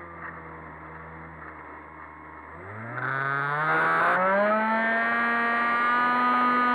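Electric motor and propeller of a Multiplex EasyStar 3 foam RC plane, heard from on board: a low hum at part throttle, then throttled up about two and a half seconds in, its pitch rising into a much louder, steady whine. A short rush of noise comes about four seconds in.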